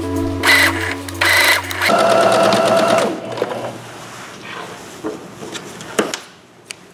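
Janome sewing machine stitching in short start-stop runs with a whining motor while backstitching, stopping about three seconds in. The fabric then rustles as it is pulled away from the presser foot, with a couple of sharp clicks near the end.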